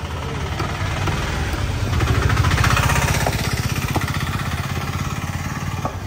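A small vehicle engine running close by with a rapid, even pulsing beat, growing louder to a peak about halfway through and then easing off, as when it passes. A few faint knocks sound over it.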